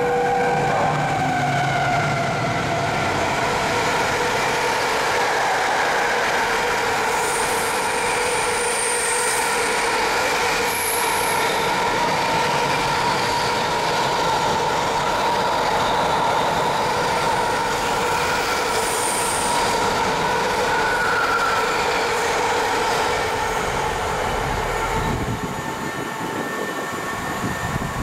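Train running by on the line: a steady mix of running noise and sustained ringing tones, with brief high-pitched squeals a few times along the way. It eases off slightly near the end.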